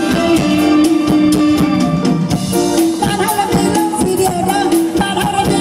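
Live mor lam band playing through a loud PA, with a steady drum-kit beat under held melody notes; a higher wavering melody line comes in about three seconds in.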